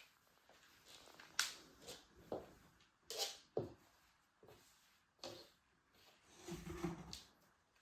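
Scattered light clicks and knocks of objects being handled, a dozen or so short strokes at uneven intervals, with a soft thud near the end.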